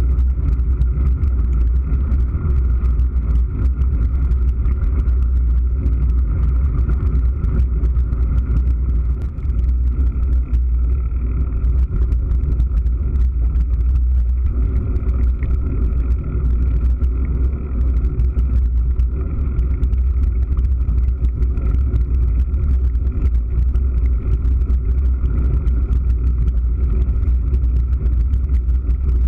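Mountain bike riding fast over paved lanes and dirt tracks, heard through a handlebar- or helmet-mounted GoPro Hero3: a loud, steady low rumble of wind buffeting and tyre noise, with fine rattling clicks from the rough ground.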